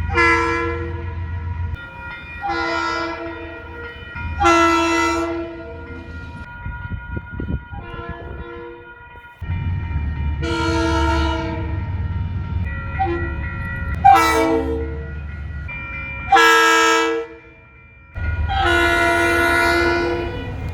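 Train horns sounding in a series of blasts, each a steady multi-note chord, some short and some held for a second or two, over a low rumble. The blasts come from several recordings run back to back, with abrupt changes between them.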